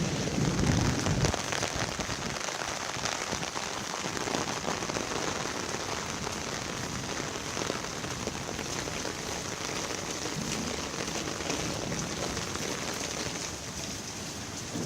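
A fast, flood-high river rushing, a steady wash of water noise, with a low rumble in the first second or so.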